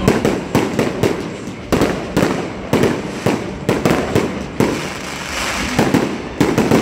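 Aerial fireworks going off in quick succession: repeated sharp bangs several times a second over a continuous rumble, with a stretch of crackling hiss about five seconds in.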